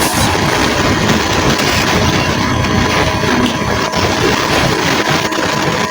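Steady loud electrical hiss and hum with a thin constant whine near 1 kHz: background noise on the recording, which the maker blames on the camera recorder being charged while it records.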